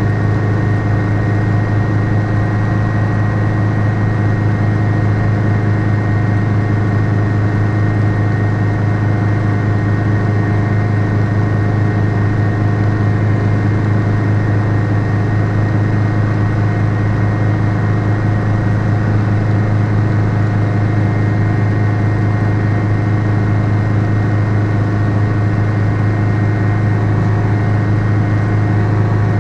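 Schweizer 300C light helicopter in flight, heard from inside its cabin: a loud, steady drone of its Lycoming four-cylinder piston engine and rotor system over a strong deep hum.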